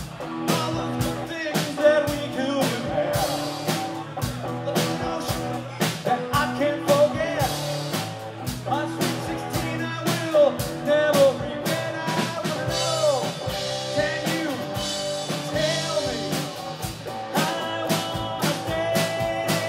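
Live rock band playing: drum kit, electric guitar and acoustic guitar, with guitar notes bending in pitch over a steady drum beat.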